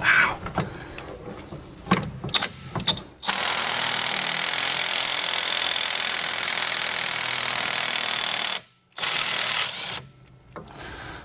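After a few clicks and knocks, an impact wrench runs steadily for about five seconds, stops briefly, then runs again for about a second. It is trying to break loose a front suspension bolt held with red Loctite that won't come off.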